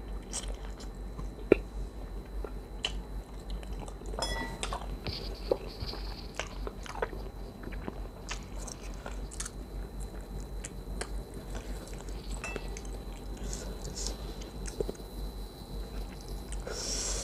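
A person chewing and eating khanom jeen (Thai rice noodles) in coconut chicken curry with chicken feet and blood cubes: chewing and wet mouth smacks with many scattered sharp clicks.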